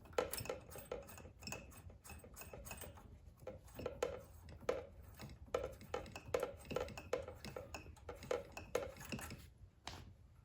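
Irregular light metal-on-metal clicks and taps, about two a second, from hand work on the valve train of a Firman inverter generator's small engine, one of whose valves is stuck open.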